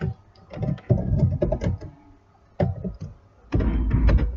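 Computer keyboard keys clicking in quick irregular bursts as a short line of code is typed, with a denser, heavier run of keystrokes near the end.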